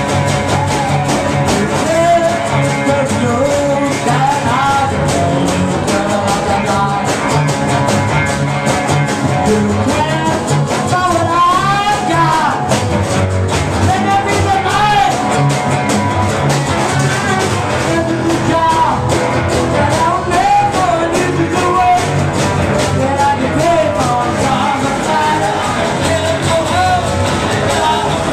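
Live rock-and-roll band playing: a man singing into a microphone over a strummed acoustic guitar, an electric guitar and drums keeping a steady beat.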